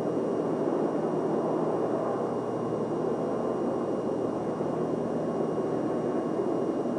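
Steady rushing room noise of a large hangar-like hall, with a faint hum underneath and no distinct events.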